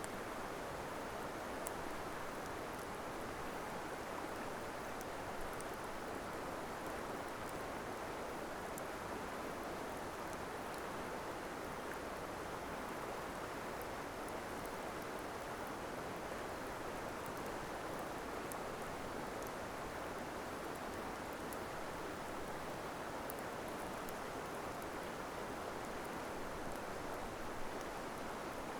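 Steady rush of flowing stream water, with faint, sparse crackles from a wood campfire.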